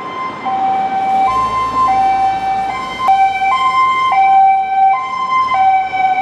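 Loud electronic two-tone emergency-vehicle siren, switching back and forth between a high and a low note, each held for roughly half a second, with traffic rumbling underneath.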